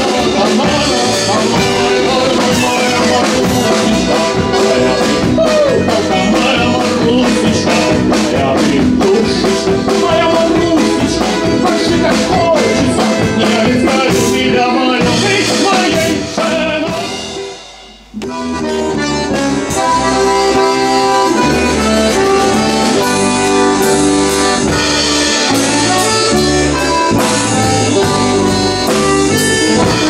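A man singing with instrumental accompaniment. The song fades out a little past halfway, and after a brief dip a new instrumental tune led by accordion starts up.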